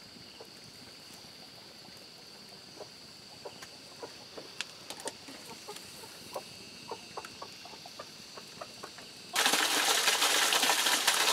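Small wood fire crackling with scattered sharp pops as a civet carcass's fur is singed over the flames. About nine seconds in, the sound switches abruptly to loud, steady rushing stream water.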